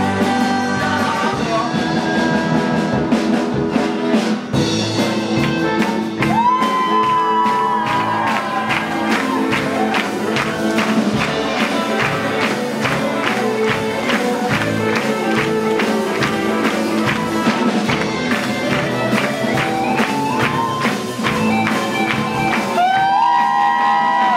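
Live rock band playing: sung vocals over electric guitars and a drum kit, with a steady, even drum beat and long held sung notes.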